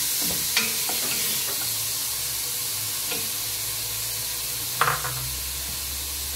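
Chopped onion and garlic sizzling as they fry in oil and meat fat in a stainless-steel pot, stirred with a wooden spoon. A few short knocks come through, the loudest about five seconds in.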